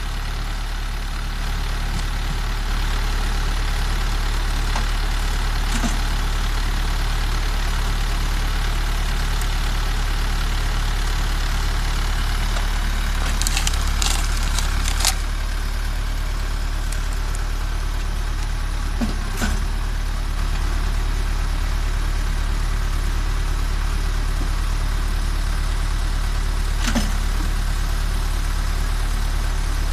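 MTZ 552E tractor's four-cylinder diesel engine running steadily at the PTO, driving a Posch HydroCombi 22 hydraulic log splitter. A few sharp cracks of wood splitting come around the middle and again near the end.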